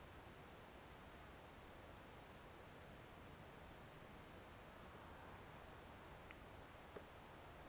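Crickets chirring in the meadow grass: a faint, steady, high-pitched chorus that never breaks, with a faint tick or two near the end.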